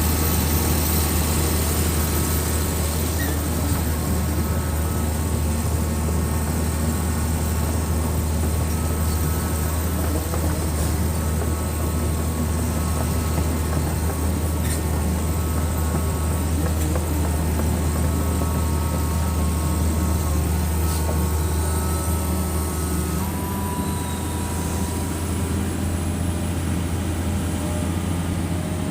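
Excavator's diesel engine running steadily with a strong low drone, its note shifting slightly near the end.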